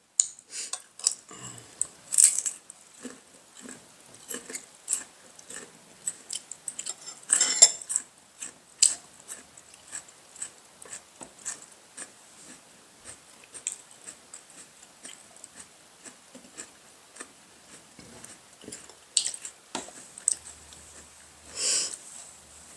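People biting and chewing food close to the microphone: a steady run of small mouth clicks and smacks, with a few louder bites standing out.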